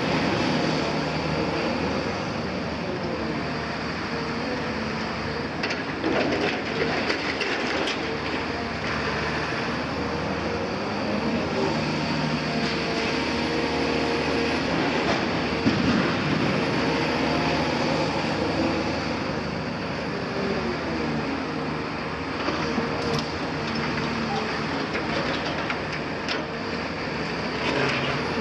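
Caterpillar hydraulic excavator with a demolition grapple working close by: a steady diesel drone with a hydraulic whine that rises and falls in pitch as the machine slews and lifts its boom, and a few knocks and clanks.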